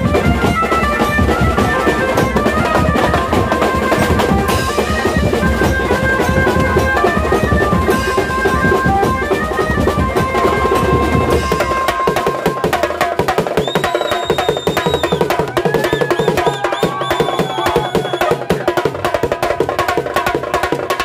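Loud procession band music: fast, dense drumming under a melody line of held notes. The deep drum beat drops out about twelve seconds in, and higher sliding notes come in after that.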